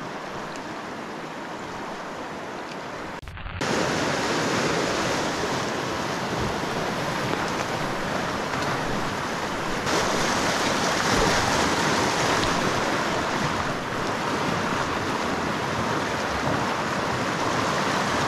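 Fast river water rushing over rocks and rapids, a steady noise. It cuts out for a moment about three seconds in and comes back louder.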